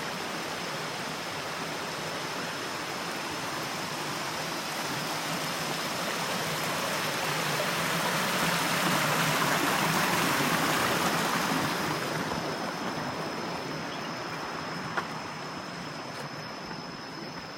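Steady rush of flowing river water, swelling louder about halfway through and then slowly fading.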